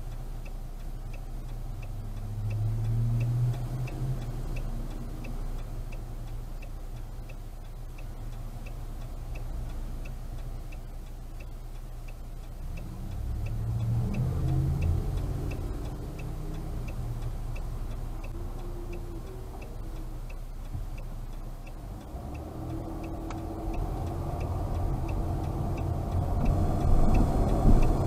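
A car's turn signal clicking steadily, a little over once a second, over the low rumble of the idling engine. A vehicle passing close alongside swells the rumble about halfway through. Near the end the engine and tyres grow louder as the car pulls away through the turn.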